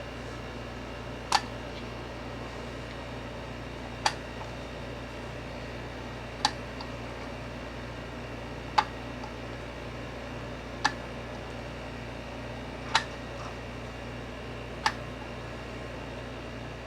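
Steady background room noise with a low hum, broken by seven short, sharp clicks or taps, about one every two seconds.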